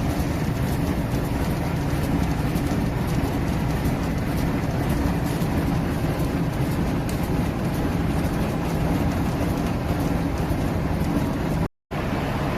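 Heavy machinery's diesel engine running steadily, with a fast clatter over a low drone. The sound cuts out for a moment near the end.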